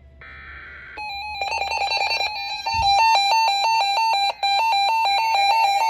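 Electronic alert tone: after a brief buzzy burst, a loud alarm starts about a second in and steps rapidly back and forth between two close pitches.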